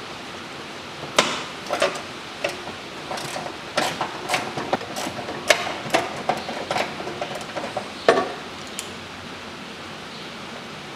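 Irregular clicks, taps and clinks of metal and plastic parts and tools being handled in a car's engine bay, with a few sharper knocks that ring briefly, over a steady hiss.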